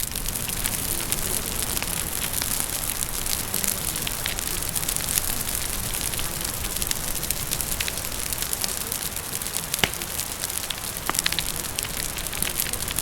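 Fire crackling over steady rain: an even rain hiss with scattered sharp crackles and pops, one louder pop about ten seconds in.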